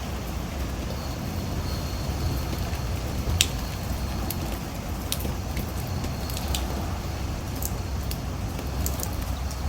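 Typhoon wind and rain: a steady low rumble of wind buffeting the microphone under a hiss of rain, with scattered sharp ticks of drops striking close by, the loudest about three and a half seconds in.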